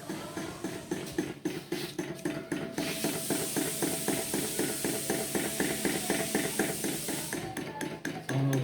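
Antique flame-powered table fan running with a quick, even mechanical beat of about five a second. A steady hiss joins in about three seconds in and stops shortly before the end.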